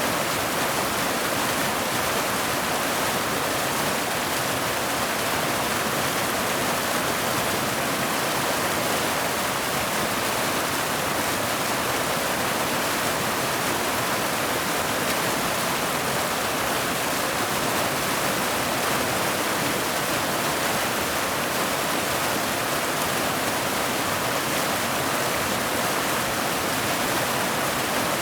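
Mountain waterfall cascading over boulders into a pool: a steady, unbroken rush of water with little deep rumble.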